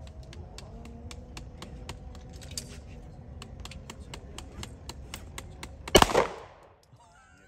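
A single 9mm CZ75 pistol shot about six seconds in, loud and sudden, with a short ringing tail. Before it, a run of faint sharp ticks.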